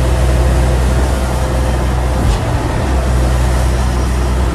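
Sherp N 1200 amphibious ATV's diesel engine running steadily under load, heard from inside the cab, as its tyres paddle it through river water with a constant rush of churning water. A brief click about halfway through.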